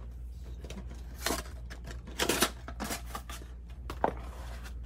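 Cardboard booster box being handled and torn open by hand, with several short rustles and scrapes of cardboard and plastic packaging.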